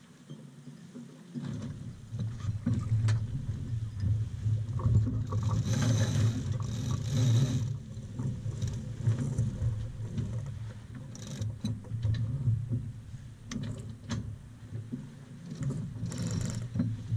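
Wind buffeting the microphone on a sailing yacht under way, a gusting low rumble, with a louder rushing hiss between about five and seven and a half seconds in and again near the end, and a few scattered clicks.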